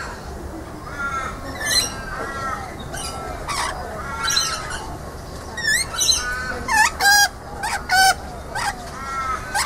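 Rainbow lorikeets calling: a run of sharp, short squawks and chattering calls, one after another and sometimes overlapping, the loudest around seven and eight seconds in.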